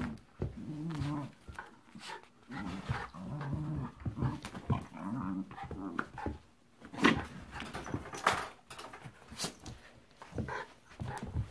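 Puppy play-growling in repeated short bouts while tugging and wrestling with a blanket. A few sharp knocks come in the second half, the loudest about seven seconds in.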